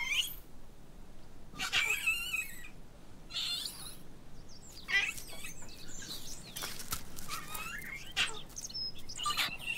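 Short, high-pitched animal chirps and squeaks, scattered every second or so, some of them gliding in pitch, with brief faint rustles between them.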